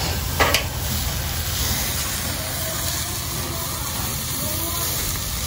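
Food sizzling on a hibachi griddle as flames flare up, a steady hissing rush, with one sharp clang about half a second in.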